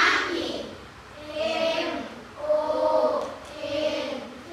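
A group of children singing together in unison, in several long, drawn-out phrases.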